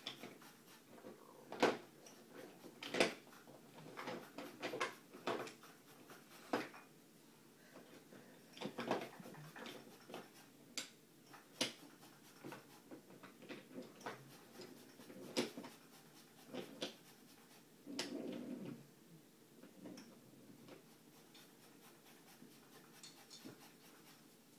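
Wooden toy trains and track pieces being handled and pushed: scattered, irregular light clicks and knocks of wood on wood.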